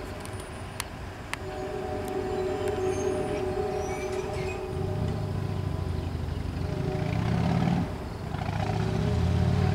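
A train unseen nearby gives a steady hum of several held tones. A low rumbling engine comes in about five seconds in, dips, and swells again near the end. There are a couple of sharp clicks and small bird chirps early on.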